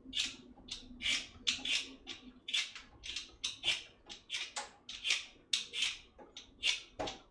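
Potato being peeled with a hand vegetable peeler: a quick run of short scraping strokes, about two to three a second.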